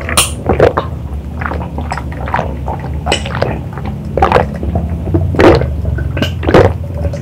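A person gulping a drink from a glass in long swallows, about ten separate gulps spaced roughly half a second to a second apart.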